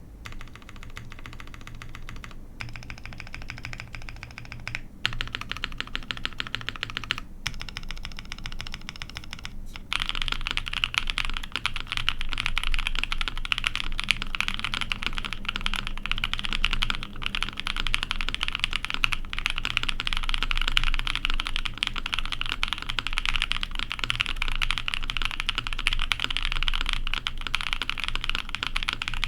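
Typing on a Chimera 65 mechanical keyboard with a half POM plate, lubed Black Cherry Pie frankenswitches and GMK keycaps. The keystrokes are lighter, with short pauses, for the first ten seconds, then become faster and louder in a continuous stream.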